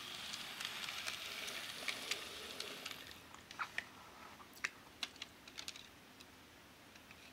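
Bachmann N-scale Durango and Silverton model train running on its track: a faint hiss and rattle that fades over the first few seconds, then scattered small sharp clicks.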